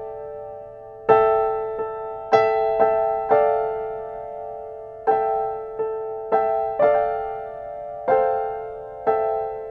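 Background music on a piano-like keyboard: slow single notes and chords, each struck and left to ring and fade, about one every half second after a short pause at the start.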